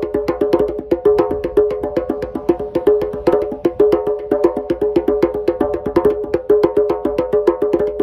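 Two djembes played by hand in a fast, steady rhythm, several strokes a second, each stroke ringing with a clear drumhead pitch.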